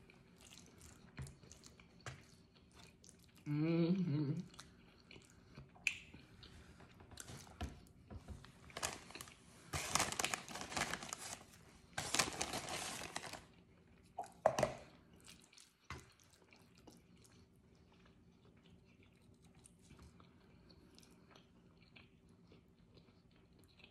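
Eating sounds: a short hummed 'mm' about four seconds in, then about ten seconds in a snack bag crinkling as chips are shaken out onto a rice bowl for a few seconds, followed by faint chewing and fork clicks.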